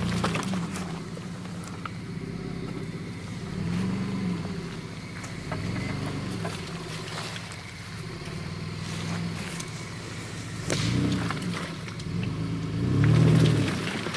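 Mitsubishi Pajero Sport's engine revving up and falling back again and again as the 4x4 pushes through deep mud ruts, with scattered knocks and clicks.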